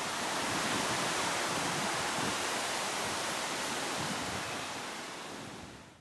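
Wind blowing through the trees and scrub: a steady rushing hiss that swells in the first second and fades out near the end.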